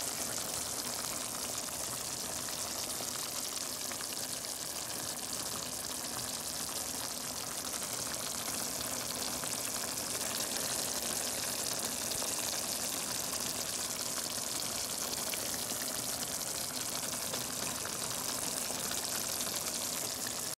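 Pork caldereta stew simmering in its pot: a steady sizzling and bubbling of the tomato sauce.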